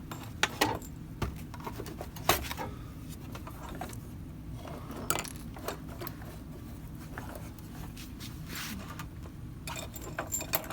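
Scattered clinks and knocks of printer parts and packaging being handled and set down on a workbench, the sharpest twice in the first few seconds, over a low steady hum.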